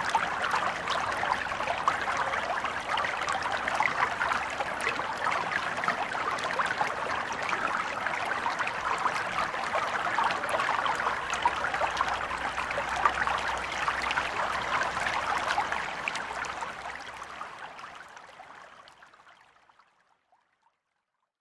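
A gently flowing stream, water trickling and babbling over stones in a steady rush with small splashes, fading out over the last few seconds to silence.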